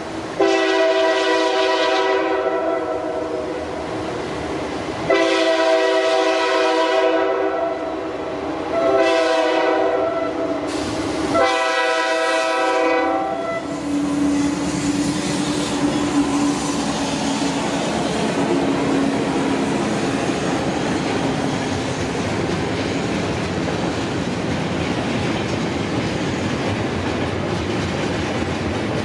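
Nathan K5H five-chime air horn on a GE C40-8 diesel locomotive sounding the grade-crossing signal: long, long, short, long. About halfway through the horn stops and the train passes close by, with a steady rumble and clickety-clack of freight-car wheels on the rails.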